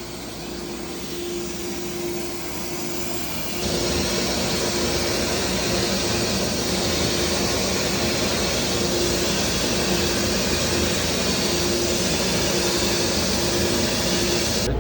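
A motor-driven machine running steadily with a constant hum and hiss, getting louder about four seconds in and then holding even.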